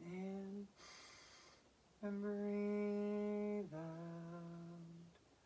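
A woman humming: a short hum, a breath drawn in, then a long steady hummed note that steps down to a lower note about three and a half seconds in and holds for over a second more.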